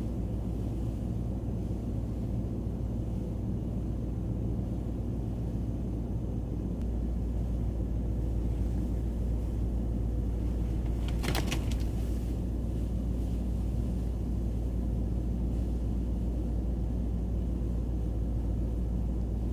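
Nissan Titan pickup running, heard from inside the cab as a steady low rumble that gets a little louder about seven seconds in. A brief sharp noise comes about eleven seconds in.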